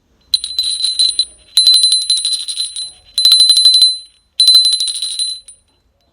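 Handmade long bulging cowbell shaken in four bursts, its clapper striking fast each time. It gives a high, bright ring.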